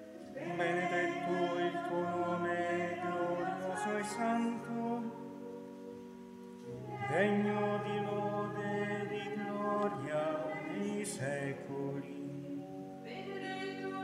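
Choir singing a liturgical chant in long held notes, in two phrases with a short breath between them about halfway through.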